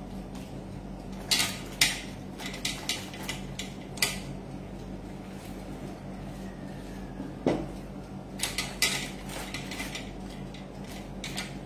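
A kitchen utensil clinking and tapping against a small ceramic dish, a scattering of sharp clinks spread out over several seconds, over a steady low hum.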